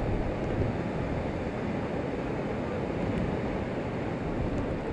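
Heavy storm surf breaking in strong wind: a steady rush of waves, with wind buffeting the microphone.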